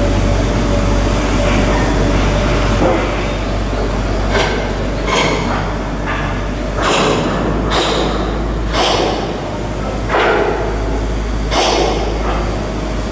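Shipyard steel work: irregular metal knocks and clanks, roughly one a second from about four seconds in, some ringing briefly, over a steady machinery hum.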